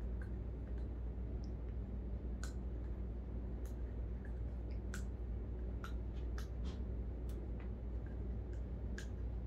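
Small dog chewing a green toy: irregular sharp clicks of teeth on the toy, spaced from a fraction of a second to over a second apart, over a steady low hum.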